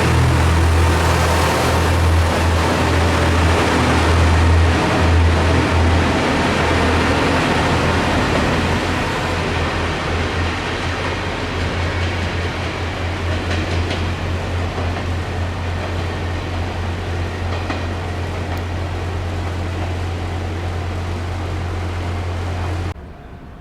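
Diesel railcar on the Kanto Railway Joso Line running, a loud low pulsing engine drone under rail and wheel noise, gradually getting quieter. The sound cuts off suddenly near the end.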